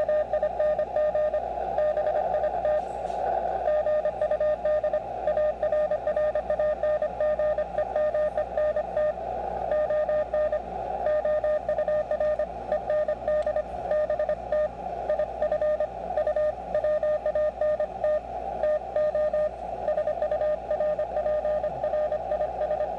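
Morse code (CW) signal on the 20-metre amateur band heard from a Xiegu X6100 transceiver's speaker: a single tone of about 600 Hz keyed on and off at around 24–25 words per minute, over a steady hiss of band noise.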